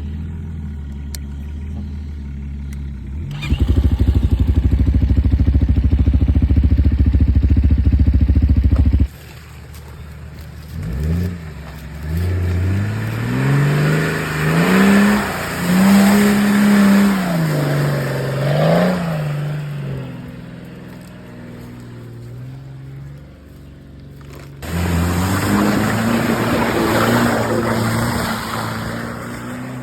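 Off-road SUV engine working under load, its pitch revving up and down several times, with a loud low rumble for several seconds near the start; the sound jumps abruptly twice where clips are cut together.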